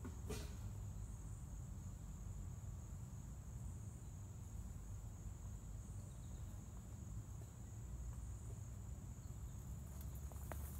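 Woodland ambience: insects trilling steadily on one high note over a faint low rumble, with a single sharp click just after the start. Near the end, a few light footsteps crunch in leaf litter.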